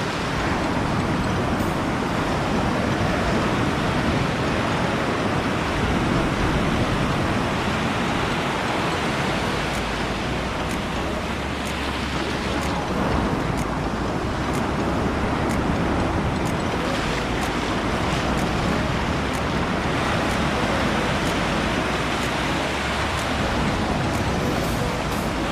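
Surf breaking on a beach, a steady even rushing noise, with some wind.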